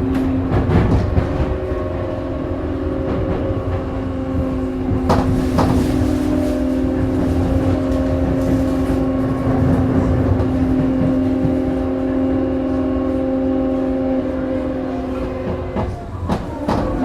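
Tokyu 9000 series electric train (GTO-thyristor VVVF drive) running at a steady speed, heard from inside the car: a steady hum of several tones over wheel and track rumble. A few sharp clicks from the track come through, and the tones briefly dip and break near the end.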